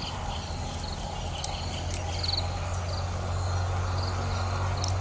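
Insects chirping in short high trills that repeat every half second or so, over a steady low hum. A few faint clicks come as the eggshell is peeled away by hand.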